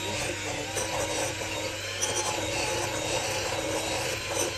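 Sabichi electric hand mixer running steadily, its twin beaters creaming butter and sugar in a glass bowl.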